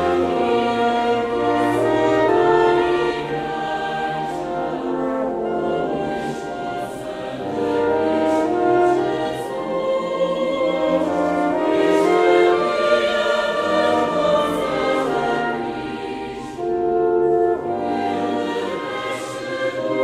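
Choir singing with a string orchestra accompanying, in sustained chords.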